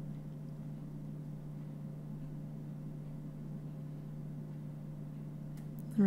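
A steady low hum over faint background noise, with a couple of faint ticks near the end.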